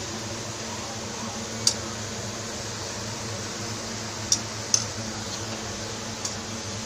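Potato pieces deep-frying in hot oil, a steady sizzle, broken by three sharp clicks: one about one and a half seconds in and two close together near the five-second mark.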